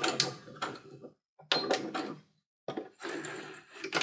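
A sewing machine's stitching stops right at the start. It is followed by a few short bursts of clicks, knocks and rustling as hands work the machine and the fabric, with near-silent gaps between them.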